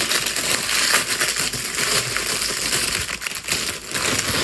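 Packaging crinkling and crackling as it is handled, a dense continuous rustle.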